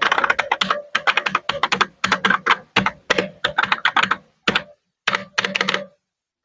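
Keys of a Zebronics wired mechanical keyboard being typed on rapidly in quick bursts of clicking keystrokes with short pauses between, stopping about a second before the end; a demonstration of its typing sound.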